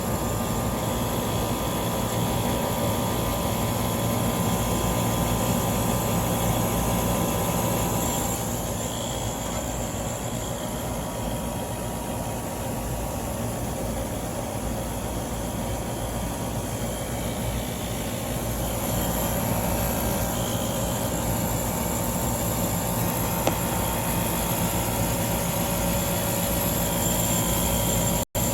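Steady mechanical hum and rumble of a small water-cooled HVAC unit running after its start delay. The higher part of the noise drops away about a third of the way in and comes back past the middle. The sound cuts out briefly near the end.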